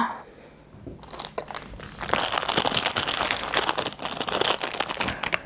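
Clear plastic parts bags crinkling and rustling as hands rummage through them, starting about a second in and loudest through the middle.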